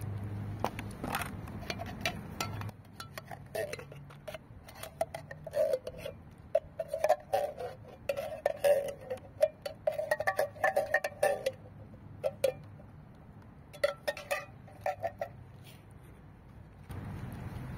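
Metal spoon clinking and scraping against an open tin can while wet cat food is scooped out: a run of sharp clinks and squeaky scrapes, busiest through the middle.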